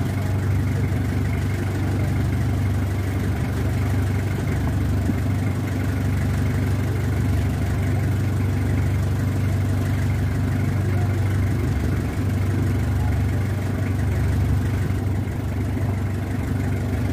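Fishing boat's engine running at idle with a steady low hum that does not change in pitch or level.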